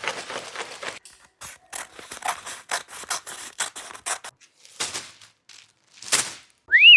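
LEGO set packaging being opened: an irregular run of short snips, scrapes and crinkles, as of scissors cutting through box tape or seals. Just before the end a loud wavering, whistle-like sound effect comes in.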